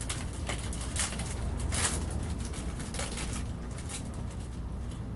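Baseball cards being handled and flipped through one by one, a string of soft, irregular clicks and rustles as card stock slides against card stock, over a steady low room hum.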